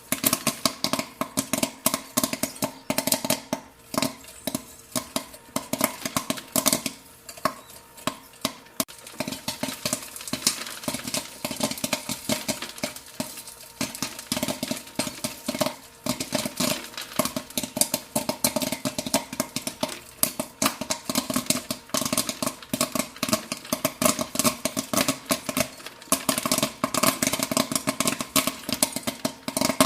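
Popcorn kernels popping rapidly and irregularly, several sharp pops a second, over a steady hum.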